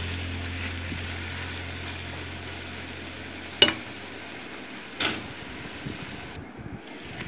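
Masala of onions and spice powders being stirred and faintly sizzling in an aluminium pressure-cooker pot. A steady low hum stops about two-thirds of the way through. Two sharp knocks against the pot come a second and a half apart, the first the loudest.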